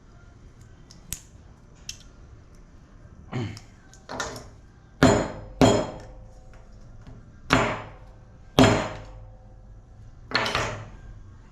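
Hammer blows on metal while breaking apart an LED lamp's parts: two light taps, then seven hard, unevenly spaced strikes, each leaving a short metallic ring.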